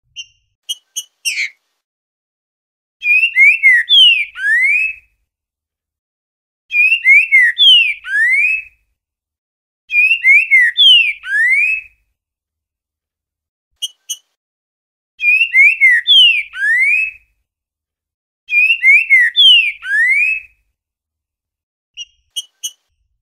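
Green-winged saltator (trinca-ferro) singing the 'boiadeiro' song: five loud whistled phrases of about two seconds each, every phrase ending in a rising slurred note. Short sharp call notes come between phrases, at the start, in the middle and near the end.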